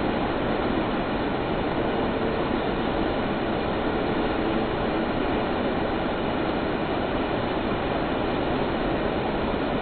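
Fast-flowing stream with a strong current rushing over rocks: a steady, even roar of running water.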